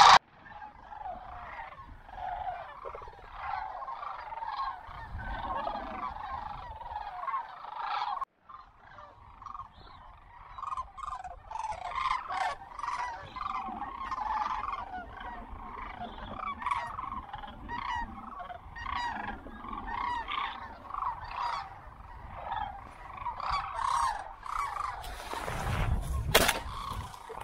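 Flocks of sandhill cranes calling, many calls overlapping, with a brief break about eight seconds in. Near the end comes a low rumble and one sharp bang, the loudest sound.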